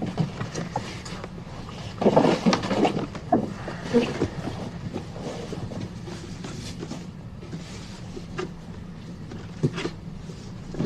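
Gift wrapping and packaging rustling and being handled as a present is unwrapped, with scattered soft rustles and knocks, busiest about two to four seconds in, over a low steady hum.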